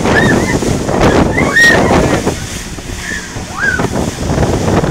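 Wind buffeting the microphone and water rushing and splashing around a small outboard-powered boat running fast over choppy sea, with a few short voice calls.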